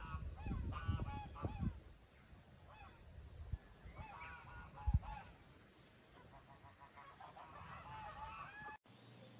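Geese honking in several bouts of repeated calls over a low rumble with a few thumps. The sound cuts off suddenly near the end.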